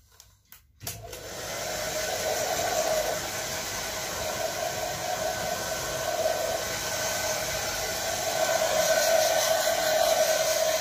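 Handheld hair dryer switched on about a second in, then running steadily, a steady tone in its rushing air, a little louder near the end.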